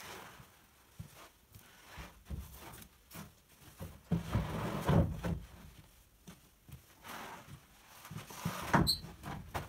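Sawn wooden boards knocking and clattering as they are lifted off a wagon and set down in a pile, with footsteps between. A cluster of knocks comes about four to five seconds in, and a sharp, loud clack just before the end.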